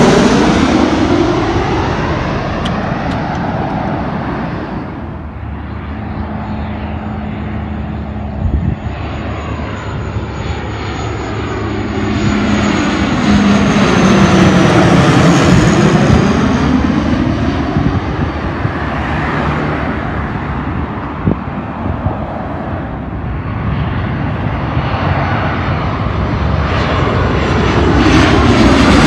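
Airliners passing low overhead one after another: a Boeing 737 jet fading away over the first few seconds, then a Dash 8 turboprop whose steady propeller hum swells and fades, loudest just past the middle, then another Boeing 737 growing louder near the end.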